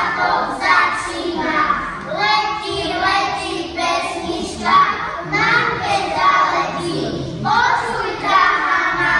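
A group of young kindergarten children singing together in short, rhythmic phrases.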